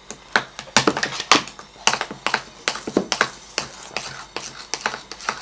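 Irregular taps and sticky clicks, several a second, from homemade glue slime being stirred and worked in bowls as it starts to thicken.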